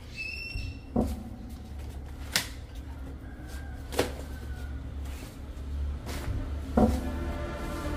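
Four sharp knocks and clacks spread over several seconds, the last one the loudest, over a steady low rumble: plastic eel-trap tubes being handled as the traps are pulled in.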